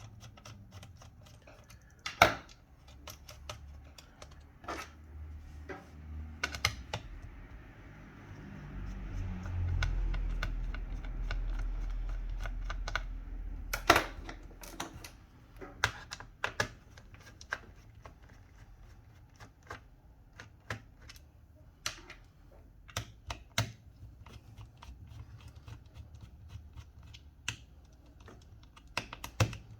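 Scattered small clicks and taps of a screwdriver undoing the screws of a laptop's bottom cover, metal on screw and plastic. A low rumble swells for several seconds in the middle.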